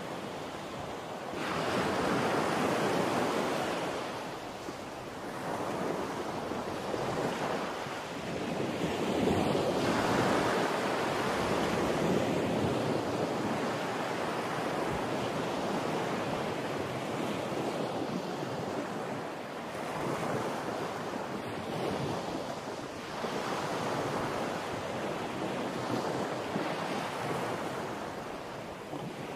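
Rough, storm-driven sea surf breaking and rushing on the shore, swelling and easing every few seconds, with wind buffeting the microphone.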